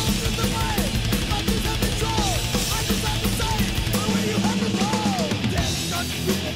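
Thrash metal music: fast pounding drums under distorted guitars, with a few notes that rise and fall in pitch about a second, two seconds and five seconds in.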